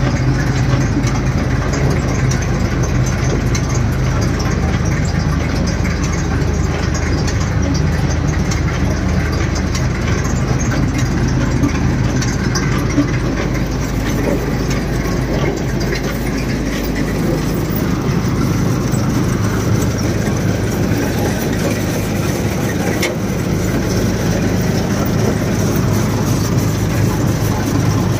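Combine harvester's diesel engine running steadily at idle, its low note shifting slightly partway through.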